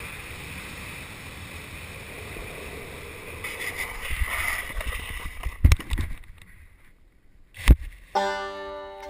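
A steady rushing noise that grows louder about a third of the way in, then two sharp knocks a couple of seconds apart, the second the loudest. Plucked banjo music begins near the end.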